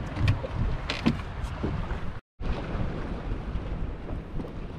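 Wind buffeting the microphone aboard a small fishing boat on open water, with a few short knocks and clicks of handling in the first two seconds. The sound cuts out completely for an instant a little past halfway.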